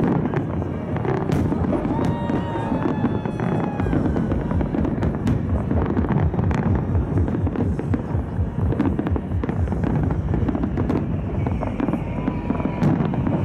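Fireworks salute going off, many bangs in quick succession over a constant low rumble.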